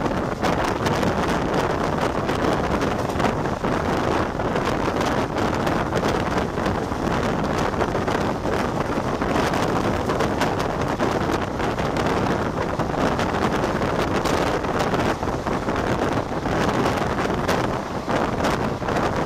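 Wind rushing over the microphone together with the running noise of an express train's coaches at speed, a steady rumble with irregular wheel-on-rail clicks, heard from the side of the moving train.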